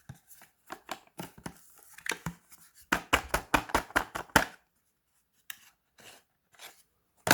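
Plastic packaging around a USB Type-C charging cable being handled and torn open: a string of short crackles, a quick dense run in the middle, then a few separate ones near the end.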